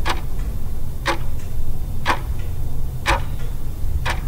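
Clock ticking loudly, one tick about every second with a fainter tick just after each, over a steady low drone.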